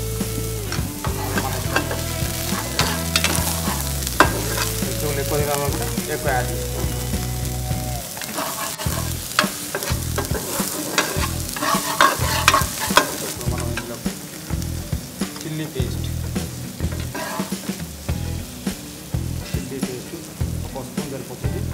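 Steel spatula scraping and tapping against a nonstick frying pan as diced vegetables are stir-fried, with the oil sizzling. The strokes are irregular and come thickest a little past the middle.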